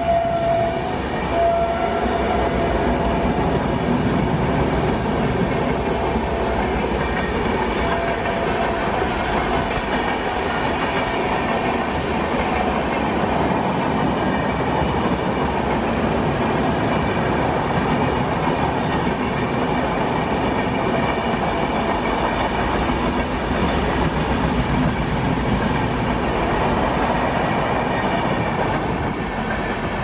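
Long express passenger train running past at speed: a steady rumble and rattle of coach wheels on the rails. A train horn sounds briefly at the very start and again faintly about a second and a half in.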